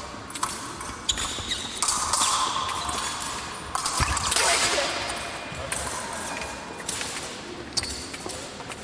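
Épée bout in action: sharp clicks and knocks of blades and footwork on the piste. From about one and a half seconds in, a steady electronic tone from the scoring apparatus sounds for a touch. A heavy thump comes about four seconds in.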